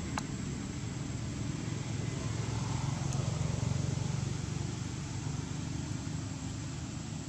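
Low, steady rumble of a motor vehicle, swelling a few seconds in and then easing off.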